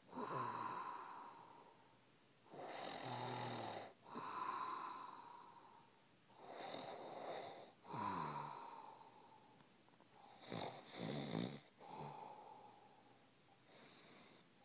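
Snoring in a slow, regular rhythm, about one breath every four seconds: each breath is a rasping, rattling snore followed by a breathy sound that fades away.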